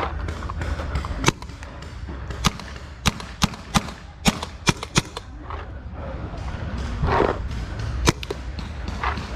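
Paintball markers firing: about ten sharp pops, some single and some in quick runs, the last one coming about eight seconds in.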